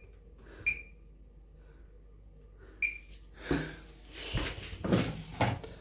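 Washing machine control panel beeping twice as its temperature button is pressed, short electronic beeps about a second in and near the three-second mark. After that, a few seconds of irregular rustling and knocking from handling things on top of the machine.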